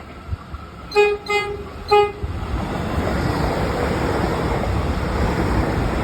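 Three short blasts on the low note of a Metro X'Trapolis electric train's horn, about a second in, then a loud rushing noise as the train speeds through the station.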